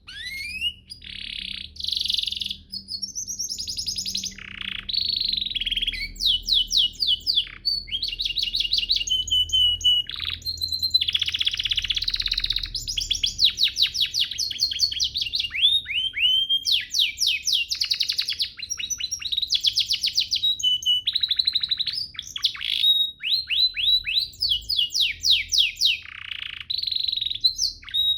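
Domestic canary singing a long, nearly unbroken song of rapid trills and fast runs of repeated notes, with sweeping rising and falling notes in between and only brief pauses.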